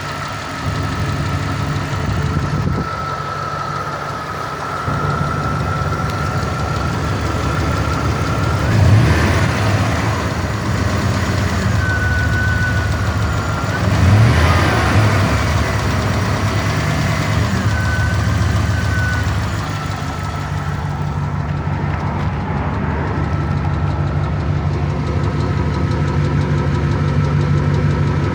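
Chrysler 318 Magnum V8 engine running with a knock, the fault its owner is trying to trace. It idles with a thin steady whine over it and is revved up briefly twice, about nine and fourteen seconds in.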